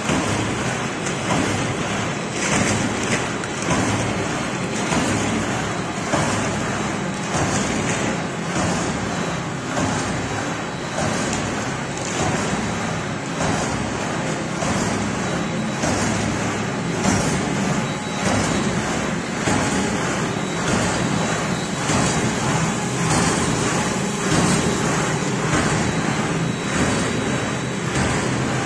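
Paper straw making machine running: a steady mechanical noise with a regular pulse about once a second.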